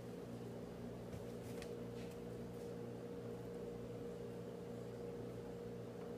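Steady low hum of a room appliance, with a few faint soft clicks of a person chewing toast about one and a half to two seconds in.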